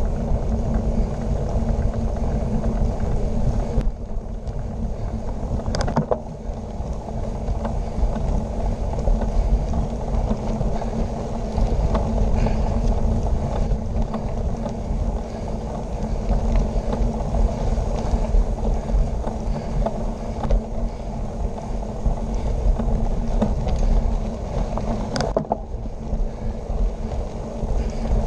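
Gravel bike tyres rolling over a gravel road, a steady low rumble and crunch with wind buffeting the microphone. A sharp click about six seconds in and another near the end.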